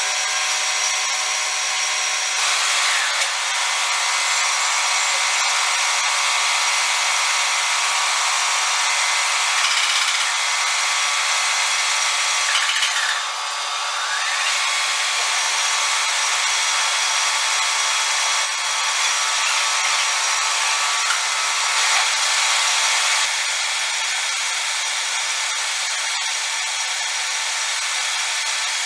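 Metal lathe running with its chuck spinning while a carbide turning tool cuts the workpiece: a steady machine whine over the hiss of cutting. The sound shifts abruptly a couple of times and dips briefly about halfway through.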